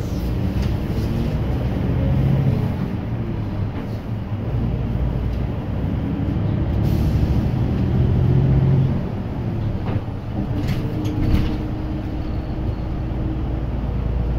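Diesel low-floor city bus running on the road, heard from inside the cabin. The engine note rises as it pulls through the gears, drops at a shift about four seconds in, climbs again and then eases off. A few sharp rattling clicks come near the end.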